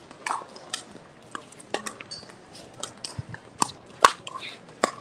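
Pickleball paddles striking the hard plastic ball: a string of sharp, irregular pops, about seven in five seconds, the loudest about four seconds in.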